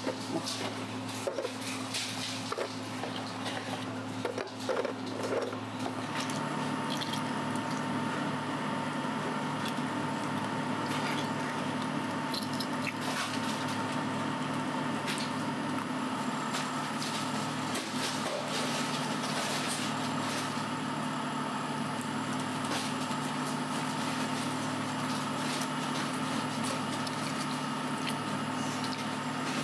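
Hands peeling boiled eggs in a pot of water: wet squishing and light splashing, over a steady machine hum. In the first few seconds, eggs knock lightly in a metal tray.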